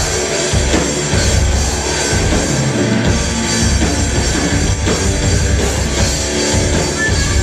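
Live rock band playing loud and full: electric guitars over a drum kit, with no vocals.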